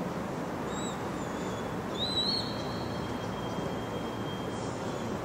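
Thin, high-pitched animal calls over a steady background noise. Two short ones come about a second in. A stronger one about two seconds in rises, then holds level for about a second and a half.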